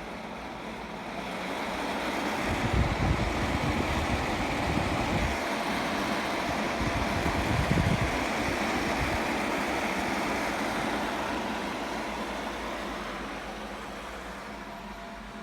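Fans of a CLC360 closed-loop liquid cooler running as a steady whoosh of air. It swells over the first few seconds, holds with some low rumbling in the middle, then winds down toward the end.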